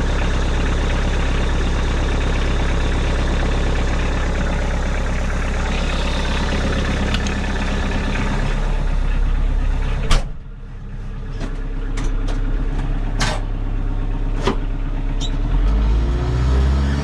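Tractor engine running steadily. About ten seconds in there is a sharp knock and the engine sound falls quieter, with several more sharp clicks or knocks over the next few seconds, then the engine picks up speed near the end.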